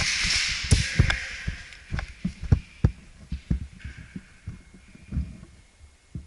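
Footsteps thudding at an uneven pace, growing sparser toward the end. A loud hiss at the start fades away over the first couple of seconds.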